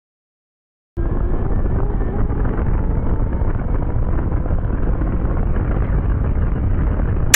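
Wind buffeting an onboard microphone and drivetrain noise from a brushless-motor RC car, a JLB Cheetah, running flat out at high speed. It is a steady, muffled rumble that cuts in about a second in.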